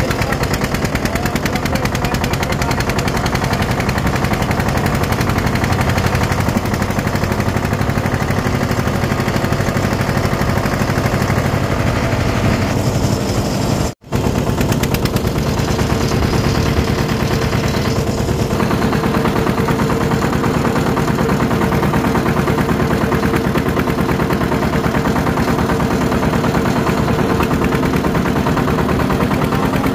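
Eicher 241 tractor's single-cylinder diesel engine running steadily under way, a rapid even chugging of firing strokes. The sound cuts out for a moment about halfway through.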